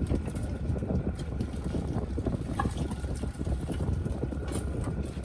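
Fishing boat's engine running steadily, a low drone with a faint steady whine above it and scattered small clicks and knocks.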